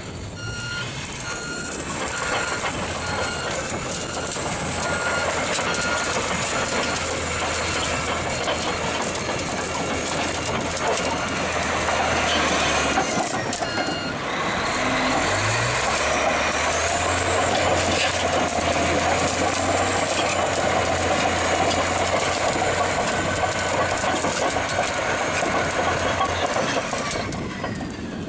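Heavy machinery diesel engines running steadily, with a high whine that rises and falls, and a reversing alarm beeping near the start. The sound breaks off and changes about halfway through.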